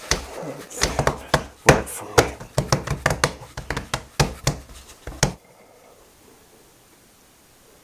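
Pastry dough being worked by hand on a wooden board: quick, uneven knocks and thumps, about twenty in five seconds, that stop suddenly.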